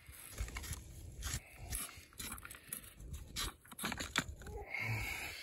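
Hands working a plastic Irritrol 2400 sprinkler valve loose: scattered clicks, knocks and scrapes of plastic parts at uneven intervals.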